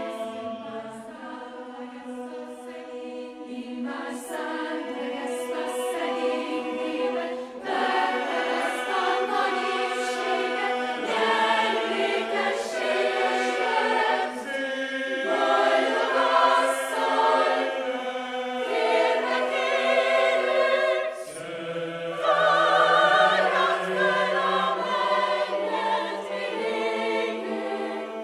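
Choir singing held chords with vibrato. Lower voices join about 21 seconds in.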